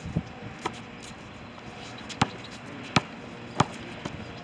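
A basketball being dribbled on an outdoor concrete court: a handful of sharp bounces, the last three evenly spaced about two-thirds of a second apart.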